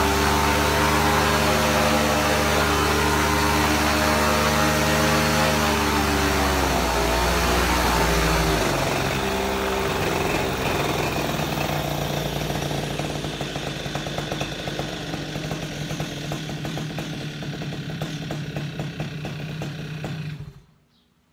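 Paramotor engine and propeller running at steady high throttle, throttling back about seven seconds in and dropping to a lower, pulsing idle, then cutting off suddenly just before the end.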